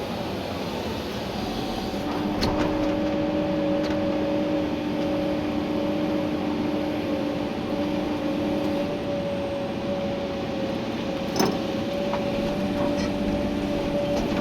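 Komatsu PC290-11 excavator running while digging, heard from inside the cab. A steady whine sets in about two seconds in and holds. A few sharp clicks and one louder knock come near the end.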